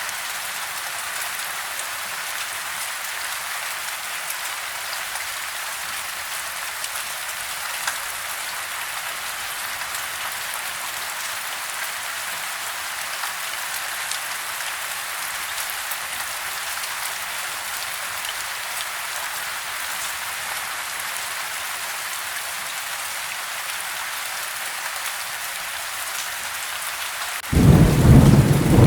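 Steady rain falling, heard from inside a house, a soft even hiss. Near the end a sudden loud, low rumble of thunder breaks in.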